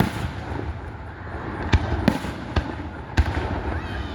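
Aerial fireworks shells bursting: about five sharp booms at irregular intervals, over a steady background hiss.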